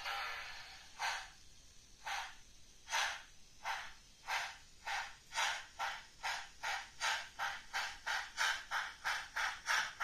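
Digital sound decoder in a model FS Gr 685 steam locomotive playing exhaust chuffs as the engine pulls away. The beats start about a second apart and speed up steadily to about four a second.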